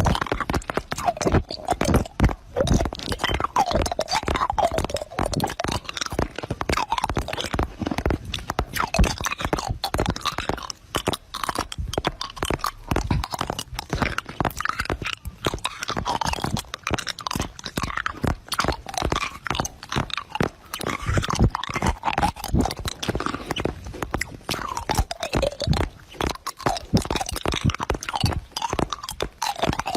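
Close-up crunching and chewing of crisp food, with dense, irregular bites and crunches all the way through.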